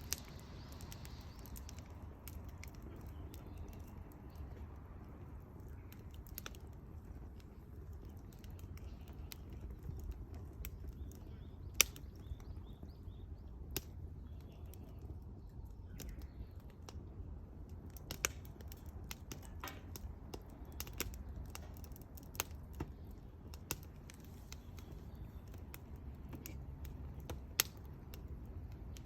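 Wood fire crackling: irregular sharp pops and snaps, a few of them much louder, over a low steady rumble.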